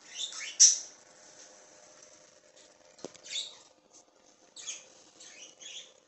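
Budgerigars chirping in short, high, squeaky bursts, loudest just after the start, with one small sharp click about halfway through.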